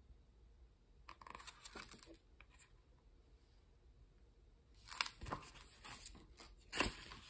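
Handling a children's picture book: faint rustling about a second in, then sharper clacks and rustles from about five seconds in as the book is put down and another picked up.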